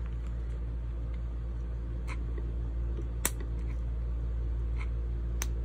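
Steady hum of an RV air conditioner running, with a few short sharp clicks, the loudest about three seconds in.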